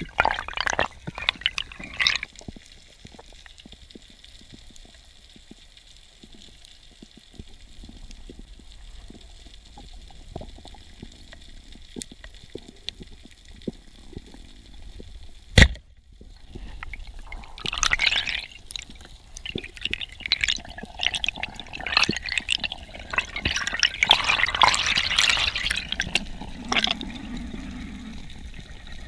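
Underwater sound: faint crackling, then about halfway through a single sharp crack as a speargun fires into a rock crevice. After the shot comes a long stretch of loud, irregular water rush and bubbling during the swim up toward the surface.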